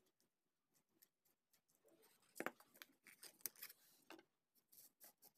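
Faint, scattered clicks and taps of a date stamp's small metal parts (date bands, plates) being handled and set down on a tabletop, the sharpest about two and a half seconds in.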